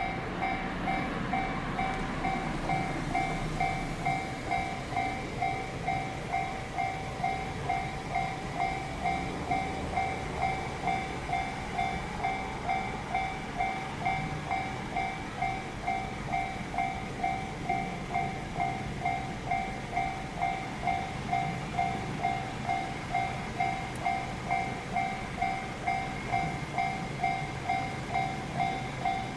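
Japanese railway level-crossing warning bell ringing steadily: a two-tone electronic clang repeating about twice a second, over a low rumble.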